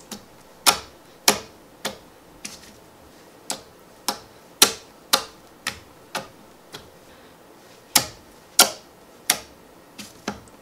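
Clear brown jelly slime being pressed and squeezed by hand, making sharp clicks and pops at uneven intervals, a little under two a second.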